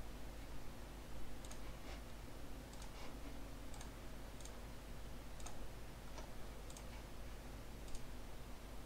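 Computer mouse clicking at irregular intervals, about ten short sharp clicks, over a low steady hum.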